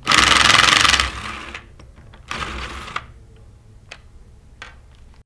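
Impact gun hammering as it loosens the clamp bolts on a metal diaphragm pump's discharge manifold: a loud burst of about a second that winds down, then a second, shorter burst a little over two seconds in, followed by a few light clicks.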